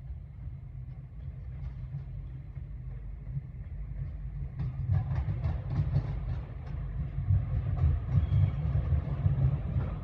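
Diesel train running through, a low rumble growing louder, with wheels clicking over rail joints from about halfway on.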